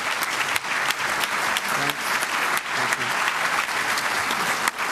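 Audience applauding, with many hands clapping steadily.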